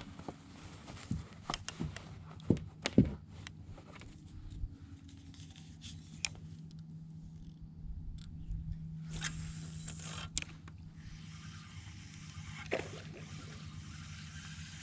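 Light knocks, clicks and scrapes of a kayak paddle and fishing rod and reel against a plastic kayak hull, over a faint steady low hum, with a brief hiss about nine seconds in.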